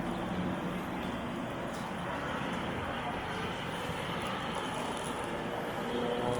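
Steady outdoor background noise of city traffic, an even rush with no distinct events, with a faint voice near the end.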